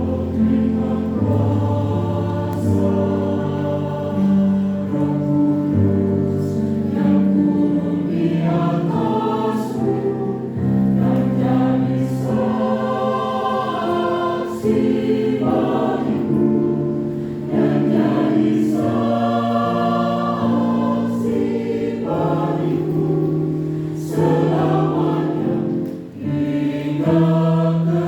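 Church choir singing a gospel worship song in sustained chords.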